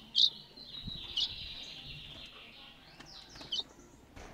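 A caged songbird singing: sharp high notes and a long warbling phrase in the first half, then a few more short notes near the end.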